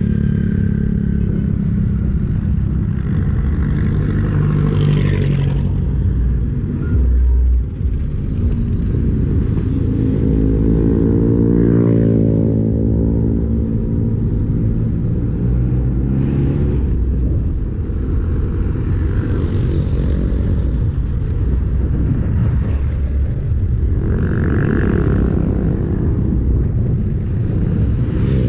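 Wind rushing over the handlebar camera's microphone as a bicycle coasts fast downhill, mixed with road traffic. Around the middle a motor vehicle's engine swells and fades as it passes.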